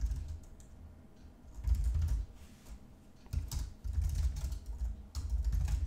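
Typing on a computer keyboard: runs of quick keystrokes with short pauses, the busiest stretch starting about three and a half seconds in.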